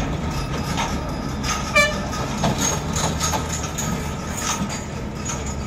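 Tata six-tyre trucks' diesel engines running as the trucks pull away, a steady low rumble, with one short horn toot about two seconds in.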